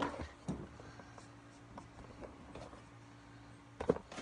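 Light knocks and rubbing as things are handled and set down on a tabletop, with the loudest knock near the end, over a faint steady hum.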